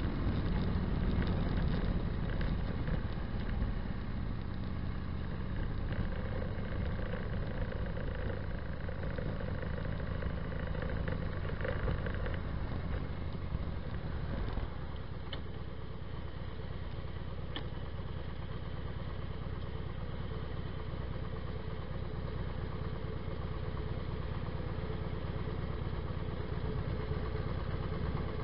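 Motorcycle engine running through Vance & Hines Longshots pipes with Quiet Baffles: a steady low exhaust rumble under way, settling to a slightly quieter note about halfway through.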